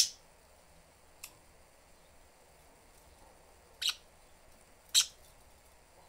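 Budgies giving short, sharp chirps: a loud one right at the start, a faint one about a second in, then two more near the end, with quiet between.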